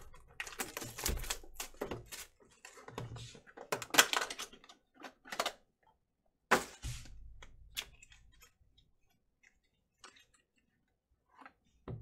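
Hands opening a trading card pack: rustling and crinkling wrapper and card handling in clusters through the first five seconds or so, then a single sharp tap about six and a half seconds in. After that, only a few faint ticks of cards being handled.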